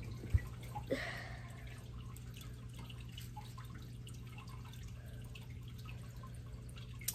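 Faint small clicks of plastic Lego pieces being handled over a steady low hum. A small knock comes about a third of a second in, and a sharp snap right at the end is the Lego model's launcher firing.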